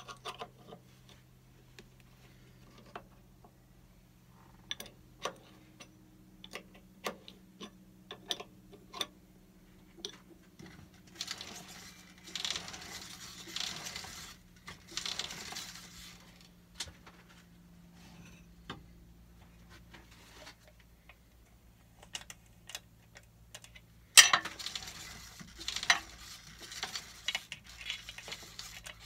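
Metal hand tools clinking and clattering as they are handled and set down, with stretches of scraping rattle in the middle and a louder clattering bout near the end, over a low steady hum.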